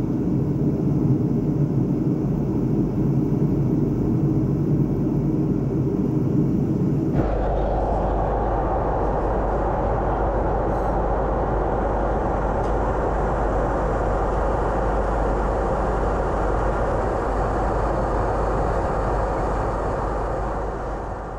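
Airbus A330 airliner in cruise heard from inside the cabin: a steady drone of the engines and rushing air. About seven seconds in, the tone shifts abruptly to a broader, hissier rush over a deep rumble.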